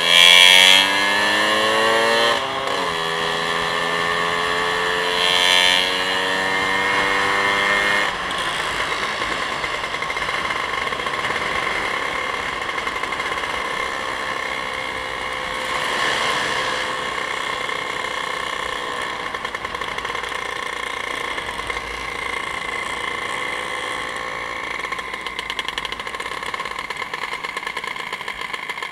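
Vehicle engine on the road, rising in pitch as it accelerates, dropping at a gear change about two and a half seconds in, then pulling up again before settling into a steady run.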